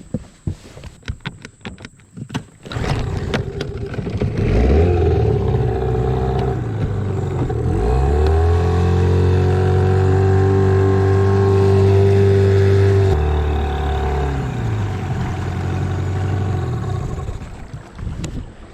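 A few knocks and rattles on the boat, then the jon boat's outboard motor runs up in pitch over a few seconds and holds a steady, loud run. About thirteen seconds in it drops back in pitch and dies down near the end.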